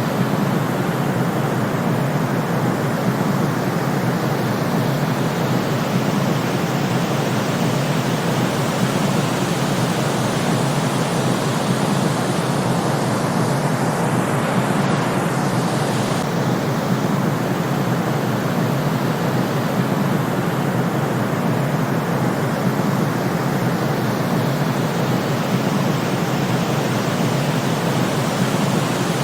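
Steady white noise: a constant, even hiss that never swells or breaks, weighted toward the lower and middle pitches.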